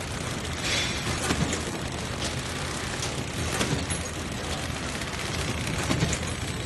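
Towel pillow-type flow-wrap packaging machine running: a steady mechanical noise with a low hum, broken by repeated short clacks at uneven intervals as towels are fed along the conveyor and wrapped in film.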